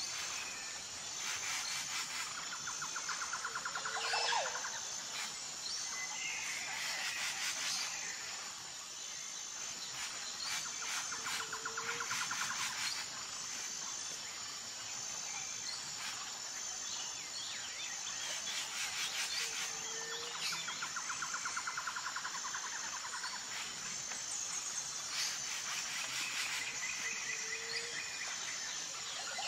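Forest ambience: insects chirping steadily in a fast even pulse, with birds calling over it. The calls are rapid trills and short low notes that come back about every eight seconds.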